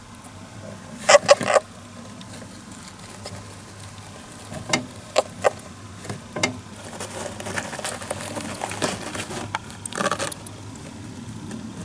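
Cream Syrian hamster giving short, sharp squeaks, about a dozen scattered through, the loudest a quick run of three about a second in.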